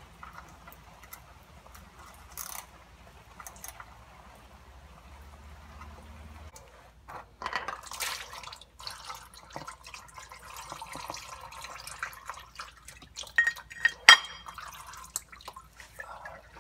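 Old engine oil draining from an air-cooled VW Beetle's oil drain cover into a drain pan. Faint ratchet clicks as the cover bolts are backed off come first; then, about seven seconds in, oil pours and splatters over a hand into the pan, with dripping and a few sharp clinks near the end.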